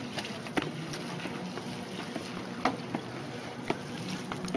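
Steady hum of a large, near-empty hockey arena, with a few sharp knocks cutting through it.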